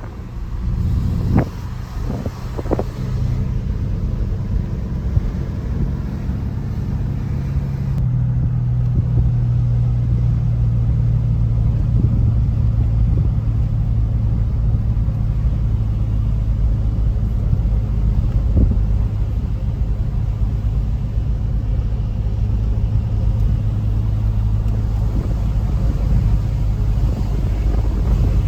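A car driving at a steady speed, heard from inside: a continuous low engine and road drone. A few short clicks sound in the first three seconds, and the higher hiss drops away about eight seconds in.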